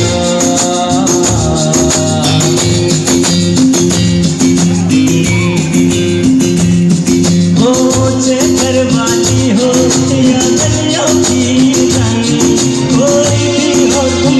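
Loud live music through a stage sound system: a man singing to a song with a steady beat and fast percussion.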